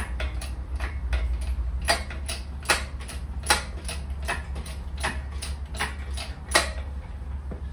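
An engine crane being worked to raise the removed Transit 2.5 diesel engine onto hanging scales. It gives a steady run of sharp mechanical clicks, about two or three a second, some louder than others, over a low steady hum.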